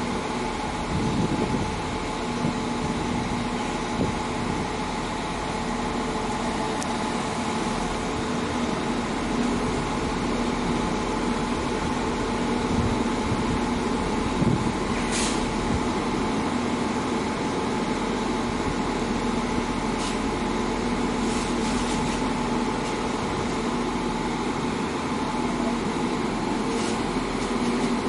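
Northern Class 195 diesel multiple unit standing at a platform with its diesel engines idling: a steady drone and hum. A few brief high hisses come about halfway through and again later.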